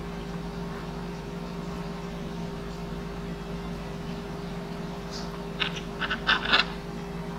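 Steady low background hum, with a quick cluster of clicks and taps about five and a half seconds in.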